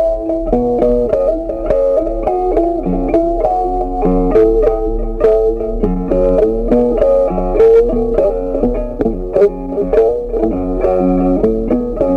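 Background music: a plucked guitar playing a melody over chords, with a new note every fraction of a second.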